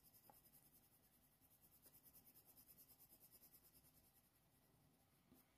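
Near silence with faint, light scratching of a Faber-Castell Polychromos coloured pencil drawing fur strokes on hot-press watercolour paper.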